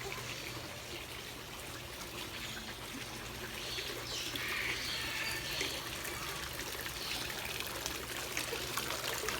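Water trickling and running steadily, like a small stream or garden waterfall.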